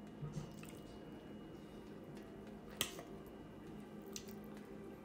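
A metal fork working through fish on a china plate: a few soft clicks and scrapes, with one sharper tap of the fork on the plate near the middle, over a faint steady hum.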